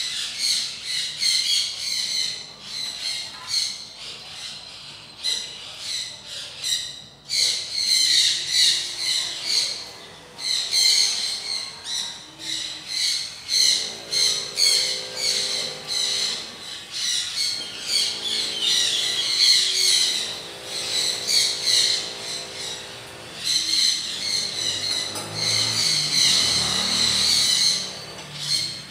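Birds chirping rapidly and without a break, many calls a second. From about halfway through, a low hum comes and goes under the chirping.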